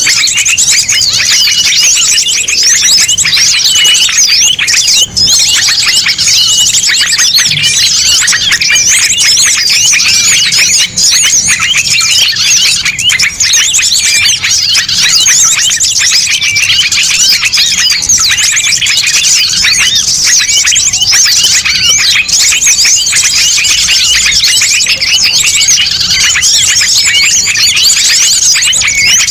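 Dense, loud chorus of many small songbirds of mixed species chirping and trilling over one another without pause. This is a bird-lure recording, played to attract wild small birds.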